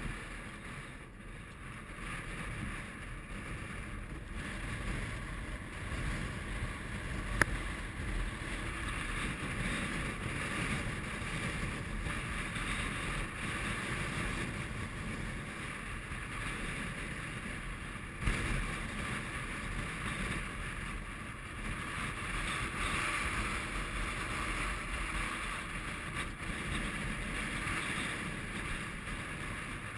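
Strong mountain wind rushing over the microphone, a steady noise that swells and eases, with a sharp click about seven seconds in and a knock about eighteen seconds in.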